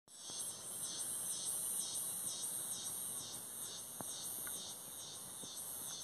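Outdoor insect chorus: a high-pitched shrilling that pulses steadily at about three beats a second.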